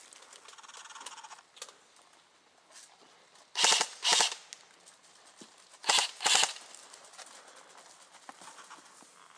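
Airsoft gun firing four short bursts in two pairs: one pair about three and a half seconds in, the other about six seconds in.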